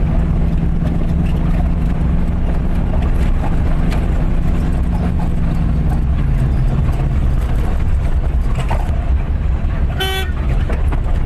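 Car engine and road noise heard from inside the cabin while driving, a steady low drone. Near the end a vehicle horn gives one short toot.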